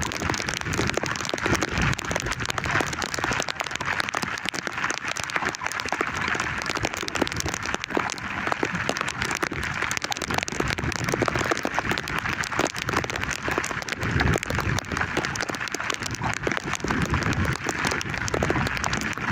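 Heavy rain falling: a steady, dense hiss of countless drops striking, with a few low rumbles around the middle and near the end.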